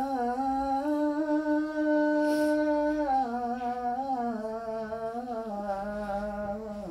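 Man's voice calling the adhan, the Muslim call to prayer, drawing out the end of "hayya 'ala-s-salah" in one long melodic vowel. The pitch rises about a second in, holds, then steps down in stages from about three seconds in.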